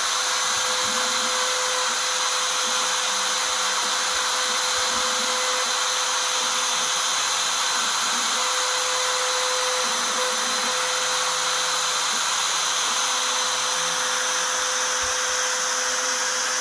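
Desktop CNC router spindle running at speed with a steady high whine, its 1/4-inch V-bit engraving lettering into aluminium sheet.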